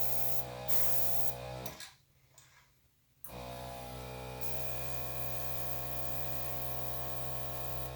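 Small air compressor running with a steady motor hum and hiss of air from its nozzle, switched off about two seconds in and on again a second and a half later. Its adjuster is twisted all the way to the other setting, where the airflow barely does anything to the paint.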